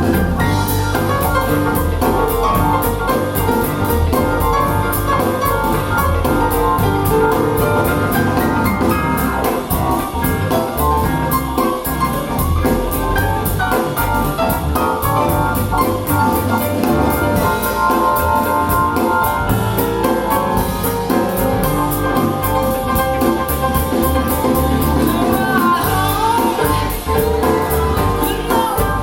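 Recorded music with a steady beat played back through Bowers & Wilkins 607 bookshelf speakers.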